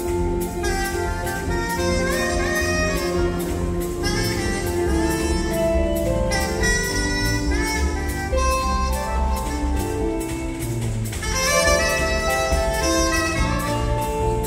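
Live jazz band playing: a bowed violin carries the melody over electric bass, guitar, keyboard and a drum kit keeping a steady beat.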